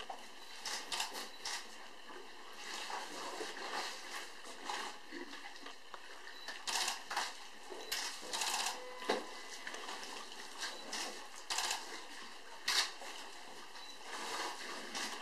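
Water splashing in irregular short bursts as African elephants drink at a waterhole, drawing water into their trunks and pouring it into their mouths; a few splashes in the second half stand out louder.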